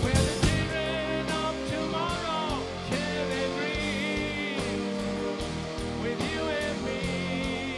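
Rock music: a slow passage of long held melody notes that bend and waver in pitch over a steady low bass.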